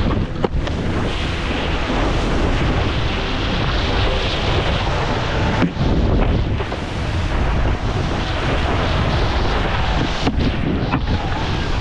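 Wind buffeting a head-mounted GoPro's microphone while wakeboarding at speed: a loud, rough rushing noise with brief dips about halfway and near the end.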